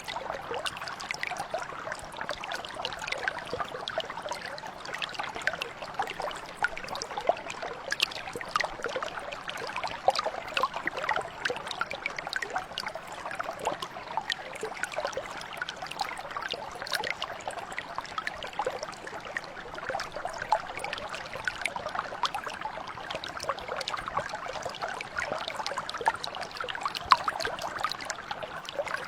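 Mountain brook flowing: a steady babble of water with many small splashes and trickles.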